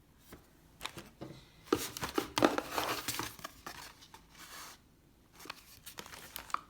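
Gift packaging being handled and opened: paper or plastic crinkling and tearing in irregular crackles, a longer spell in the first half and a shorter one near the end.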